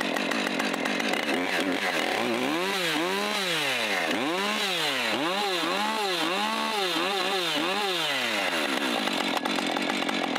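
Husqvarna 545 Mark II 50cc two-stroke chainsaw running after a pull start: it idles, is revved up and down about five times in a row from about two seconds in, then settles back to idle near the end.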